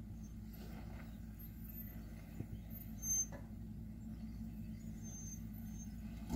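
Pickup truck's engine running low and steady as the truck creeps slowly over the crest of a steep dirt drop. A brief knock about three seconds in.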